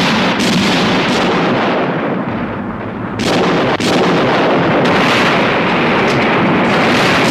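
Artillery fire in a war-film soundtrack: a battery of field guns firing and shells exploding. Heavy blasts run together into a continuous rumble, with fresh blasts about three and four seconds in.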